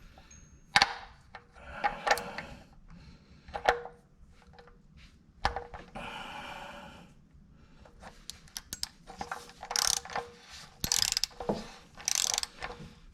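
Hand tools being handled: metal clinks and short runs of rapid ratchet-wrench clicking, denser in the second half.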